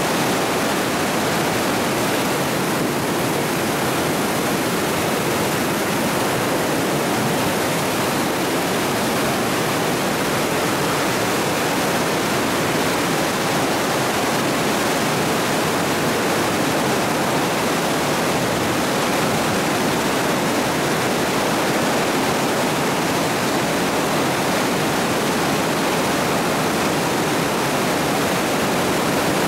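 Flash-flood water rushing and churning around concrete pillars: a loud, steady rush of turbulent water with no let-up.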